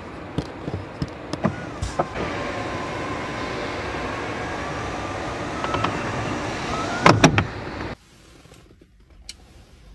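A few clicks, then the electric motor of a Mercedes-Benz GLS450's power-folding third-row seat runs steadily for about five seconds with a faint wavering whine, ending in a couple of loud clunks as the seat stops. The sound then cuts off abruptly to near quiet.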